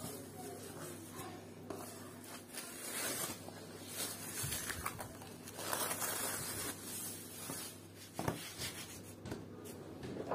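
Quiet kitchen handling sounds of croissant dough being worked: soft rubbing and scraping strokes, with a light knock about eight seconds in.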